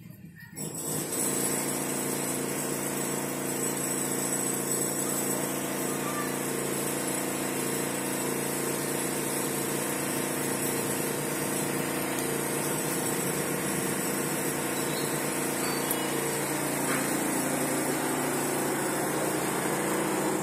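A motor starts running about a second in and then runs steadily, with an even hum and a thin high whine over it.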